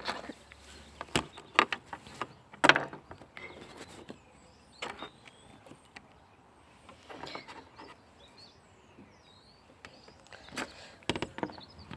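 Scattered light clicks and knocks, a few louder taps near the start and near the end, with faint short high chirps in the middle.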